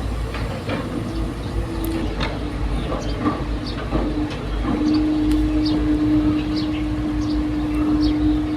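Excavator working: a low diesel engine rumble with scattered metallic clanks and knocks, and a steady hum that comes up strongly about halfway through.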